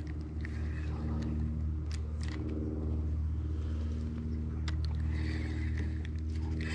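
An engine running steadily with a low, even drone. A few faint clicks sound over it.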